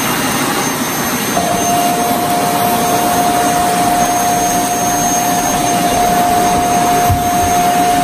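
Stick vacuum cleaner running steadily over a carpet, sucking up the baking soda sprinkled on it; a steady whine joins its noise about a second and a half in.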